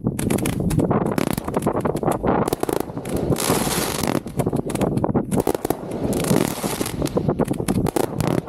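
Fireworks heard from inside the firing site: a rapid, unbroken run of launch thumps and shell bangs, with stretches of crackling hiss from bursting shells about three seconds in and again near six seconds.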